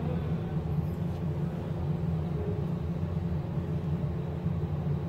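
A steady low hum, with a man's voice faint beneath it.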